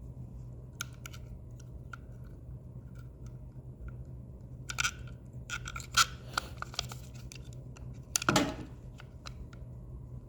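Small plastic clicks, scrapes and knocks from hand-handling the Roomba S9's wheel module and its spring while refitting it, with a cluster of clicks midway and one louder knock near the end.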